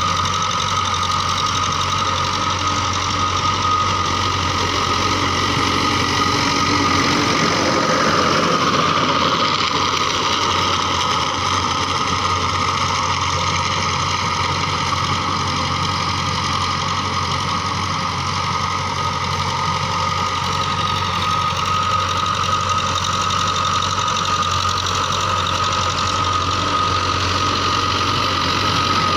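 A TAFE tractor's diesel engine running steadily under load while pulling a rotary tiller through the soil, with a steady high whine over the engine note.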